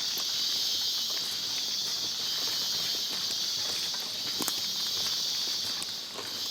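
A steady, high-pitched insect chorus of the tropical forest, with scattered footsteps on a rocky trail clicking over it.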